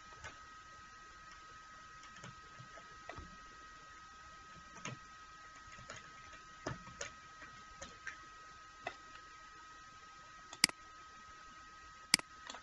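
Scattered clicks of a computer keyboard and mouse during code editing, irregular and a second or so apart, with two louder sharp clicks near the end. A faint steady high whine sits underneath.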